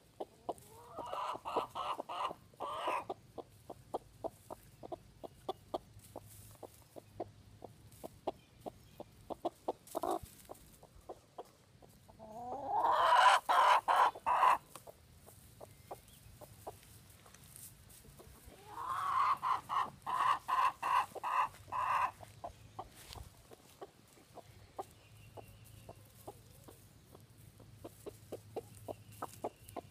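Broody hen clucking: soft, evenly spaced clucks about three a second, broken three times by louder drawn-out calls of quick pulses, the loudest about halfway through.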